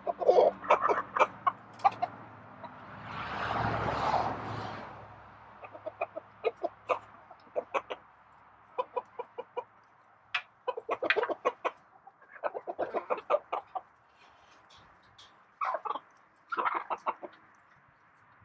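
Domestic hens clucking in short rapid bursts, on and off. A brief swell of rushing noise rises and fades about four seconds in.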